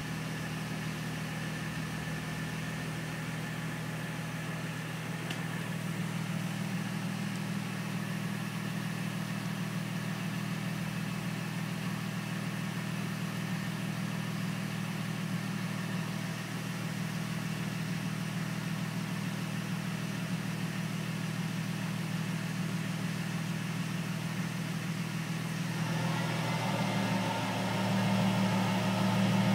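Mercedes-Benz SLK engine idling steadily, with a thin steady whine over the engine hum: the whining noise the owner is showing. The engine note rises and grows a little louder near the end.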